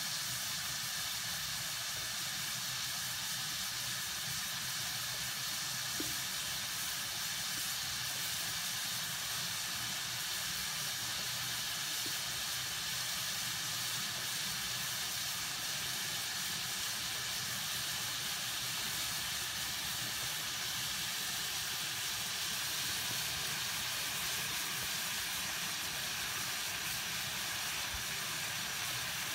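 Steady hiss of a pot of water heating toward a simmer on a lit gas burner.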